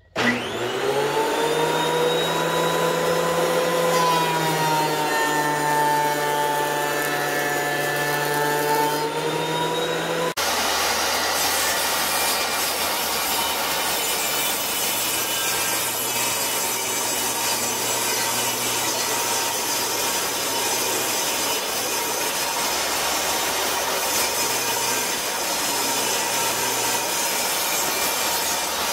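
Benchtop thickness planer running with a whining hum as a wenge board is fed through, its pitch sagging slightly under the cut. About ten seconds in it switches abruptly to a table saw ripping a dense wenge board, a steady cutting noise.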